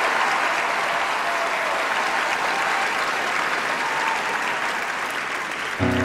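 Large theatre audience applauding, the clapping slowly dying down. Just before the end, music starts suddenly with a sustained chord.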